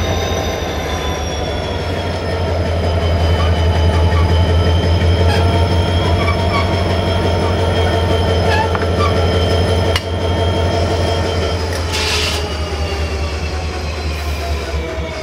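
GM-rebuilt Electroputere diesel-electric locomotive running slowly during shunting: a steady deep engine hum under a thin whine that drifts slowly in pitch. A sharp clank comes about ten seconds in, and a short hiss of air follows about twelve seconds in, as the locomotive is coupled to a coach.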